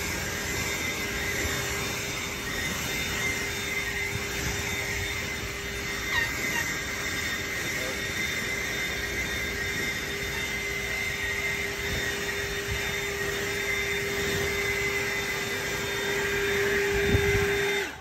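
ECHO DPB-5800T battery-powered backpack blower running steadily, its fan giving a strong rush of air with a steady whine. It is swept over grass and mulch and cuts off abruptly at the end.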